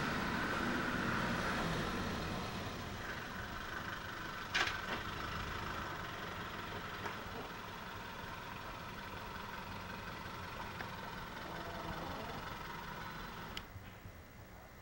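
Steady outdoor background noise with a faint engine hum. It is broken by two sharp clicks, about four and a half seconds in and again near the end, where the camcorder recording cuts, and it drops off after the second click.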